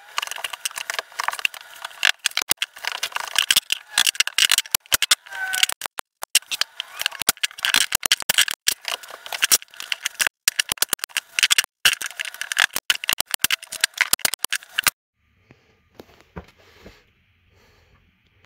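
Engineered hickory flooring boards being handled and pressed into adhesive: dense, irregular clattering and knocking of wood on wood. It stops abruptly about fifteen seconds in, leaving only faint rustling.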